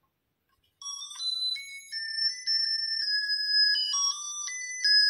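A thin, beeping electronic melody of stepped single notes, like a cheap music chip, starting about a second in. It is the tune of a heart-shaped musical dome gift.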